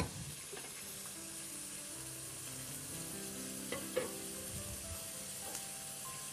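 Pieces of meat frying in hot ghee in a pot: a steady sizzle, with two light knocks about four seconds in.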